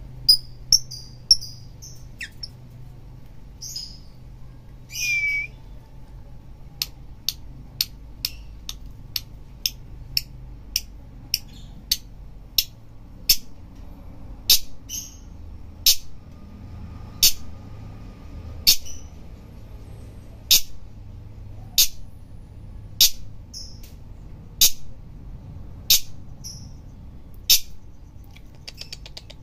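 Lovebird calling: a few high chattering chirps, then a long series of sharp, very short high-pitched chips. The chips come quickly at first, then settle to about one every second and a bit.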